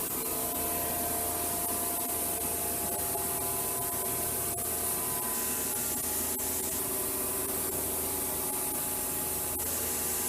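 1998 Okuma Cadet Mate vertical machining center's spindle running steadily at 5000 RPM: an even whine of several steady tones over a high hiss.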